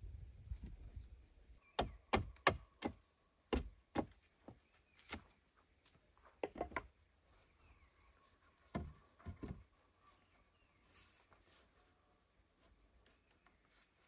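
Wood being struck with a tool: about a dozen sharp, irregular knocks, some in quick clusters, that stop a few seconds before the end.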